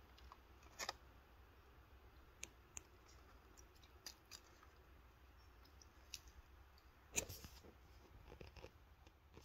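Faint, scattered light taps and small splashes of a cat's paw batting at shallow water in a plastic tray, against near silence; the loudest, a brief splashy tap, comes about seven seconds in.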